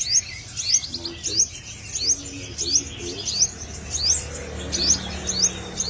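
Black sunbird calling: a steady run of short, sharp, high-pitched rising chirps, about two a second.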